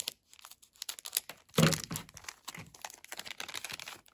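Foil booster-pack wrapper crinkling as it is handled and torn open: a run of small crackles, with a louder crinkle about a second and a half in.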